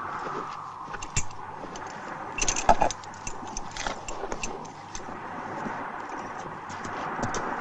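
Horse tack and riders' gear clinking and clicking in irregular jingles as riders mount and move off on their horses, with a louder clatter a little under three seconds in.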